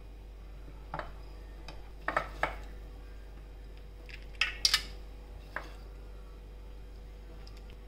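Metal spoon clinking and tapping against stainless steel bowls and a steel tray as toppings are served: a few scattered clinks, the loudest pair about halfway through.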